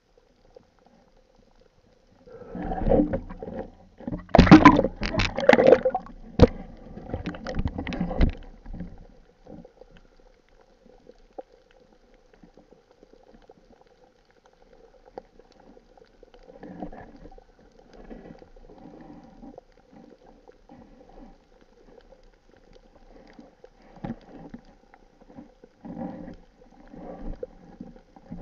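Water gurgling and bubbling, heard through an underwater camera housing. It is loudest in a run of irregular bursts in the first third, then comes back as softer, scattered gurgles over a faint steady hum.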